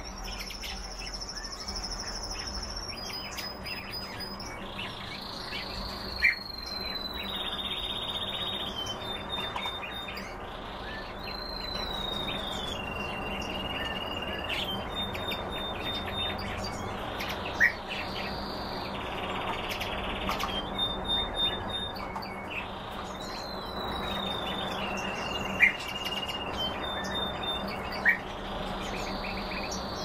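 Several cage birds calling. One call repeats every five or six seconds, sliding down from a high note and settling on a slightly lower held tone. Faint chirps run between the calls, and four short, sharp chips stand out as the loudest sounds.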